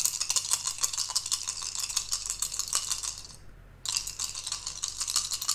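Elder Sign game dice rattling, a rapid stream of small clicks that breaks off for about half a second a little past the middle, then starts again.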